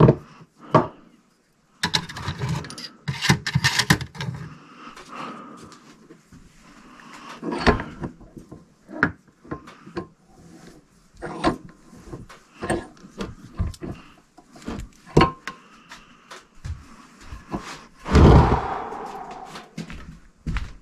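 Irregular knocks, clatter and rubbing of tools and metal parts being handled at a workbench, with a busy stretch of clatter about two seconds in and a louder scrape near the end.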